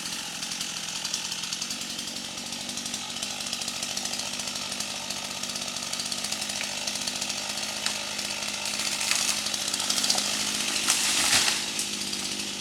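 Two-stroke Stihl chainsaw running at high speed, cutting through a tree. It gets louder toward the end of the cut and then eases off near the end.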